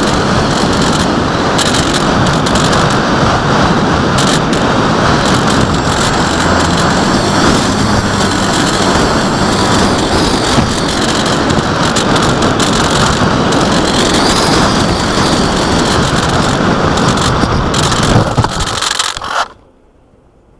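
Loud, steady rushing of wind on the microphone that cuts off abruptly near the end.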